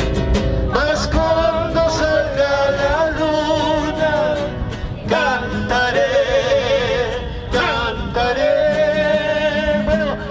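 Background music: a singer holding long notes with vibrato over instrumental accompaniment.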